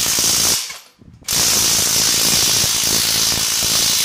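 Cordless brushless 1/2-inch drive impact wrench running in two bursts, a short one and then, about a second later, a longer one, its hammer mechanism rattling rapidly against a bolt whose thread has stripped.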